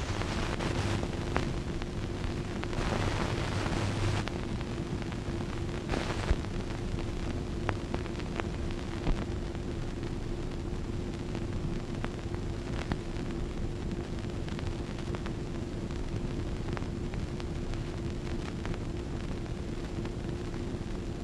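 Surface noise of an old film soundtrack: a steady hiss with a constant low hum, scattered clicks and pops, and a few louder rushes of noise in the first six seconds.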